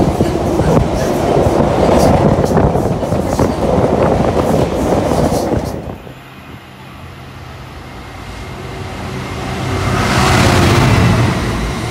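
Freight train of bogie tank wagons rushing past at speed, wheels clicking over the rail joints, cutting off about six seconds in. Then a Freightliner diesel locomotive hauling container wagons approaches and passes, its engine's low hum and the wheel noise growing louder toward the end.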